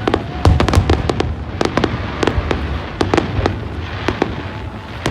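Fireworks display going off: a rapid series of sharp bangs and crackles, several a second, over a continuous low rumble.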